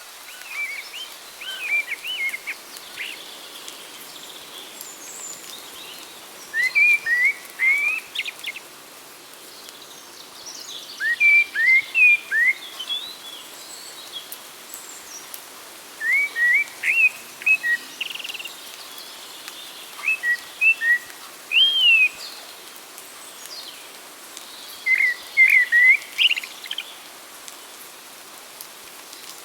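Songbirds singing: one bird repeats a short phrase of four to six quick, clear notes about every four to five seconds, with fainter calls from other birds and a steady hiss behind.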